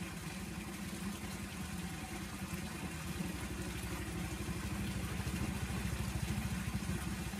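An engine running steadily with a low, rapid pulse, growing slightly louder over the few seconds.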